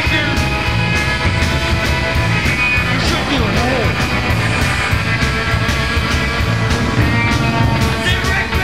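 Background music with a steady beat and sustained pitched instrument lines.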